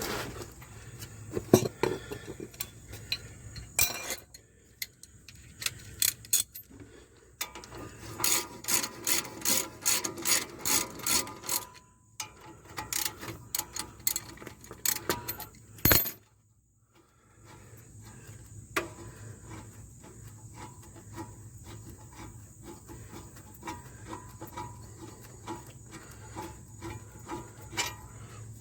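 Hand tools working on a brake caliper's bolts: runs of quick, evenly spaced ratchet clicks with metal clinks and knocks in between, and a single loud knock about sixteen seconds in.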